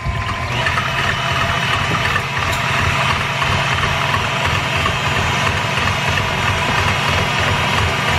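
Stand mixer running steadily at speed, its wire whisk attachment whipping cream in a steel bowl.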